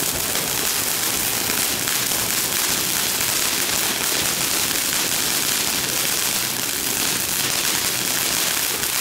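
Several ground fountain fireworks spraying at once: a steady loud hiss thick with fine crackling.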